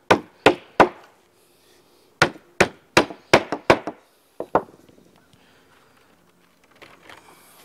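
Hammer tapping wooden Langstroth hive frame pieces together: three quick strikes, a run of five strikes about two seconds in, and two more about halfway through, then only faint handling of the wood.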